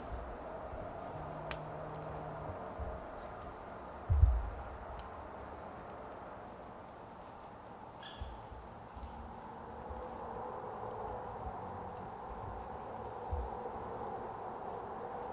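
Woodland ambience: insects chirping in short, high notes, about two a second, over a steady background hiss. A low thump comes about four seconds in, and a sharp click about eight seconds in.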